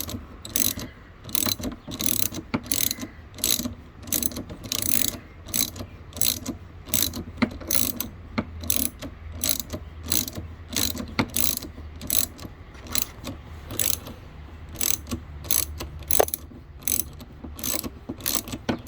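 Hand socket ratchet clicking in repeated short strokes, about two clicks a second, on a 12 mm exhaust-clamp nut. The bolt is spinning along with the nut instead of tightening.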